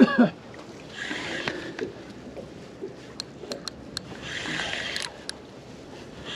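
Water slapping and washing against the hull of a small boat in bursts about every three seconds, with a few light clicks in between.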